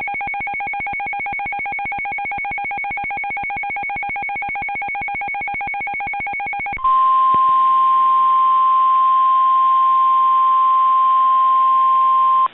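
A rapidly pulsing electronic beeping of several high tones together for about seven seconds. This gives way to the louder, steady single-pitch NOAA Weather Radio warning alarm tone at about 1050 Hz, which cuts off just before the end. The tone announces a broadcast weather warning.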